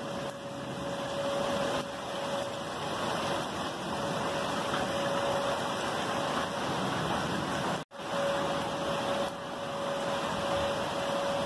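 Steady heavy rain with wind, and under it the steady tone of a distant outdoor tornado warning siren that swells and fades every few seconds. All sound cuts out for a split second about eight seconds in.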